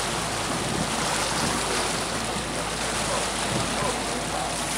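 Steady rushing of water churned up by a boat under way, its wake foaming behind it.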